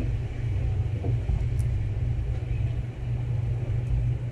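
Steady low background rumble, with a faint click about one and a half seconds in.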